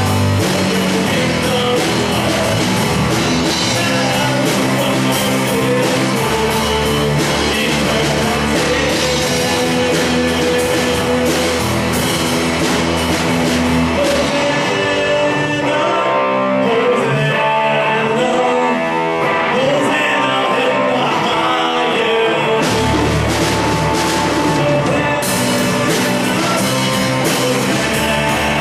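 Live rock band with singing: electric guitars, bass and drums. Around the middle the drums and bass drop out for several seconds, leaving held guitar and vocal parts, then the full band comes back in.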